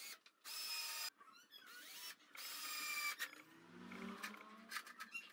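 Cordless drill-driver driving screws through metal corner brackets into a wooden frame, in two short runs of about half a second each, a second and a half apart, with small clicks and knocks around them.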